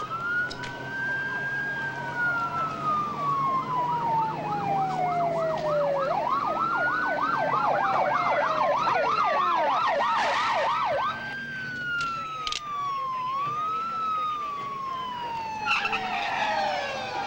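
Police car sirens wailing in long rising and falling sweeps, two or more overlapping, with a fast yelping warble for several seconds in the middle.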